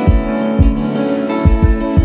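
Background music: held chords over a deep kick-drum beat.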